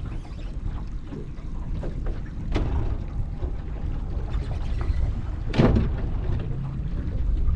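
Low, steady rumble of a small fishing boat on the water, with two short, sharp knocks, the louder one about five and a half seconds in.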